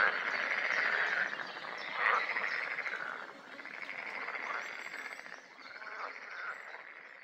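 A dense chorus of frogs calling in rapid, repeated notes. It fades out over the last few seconds.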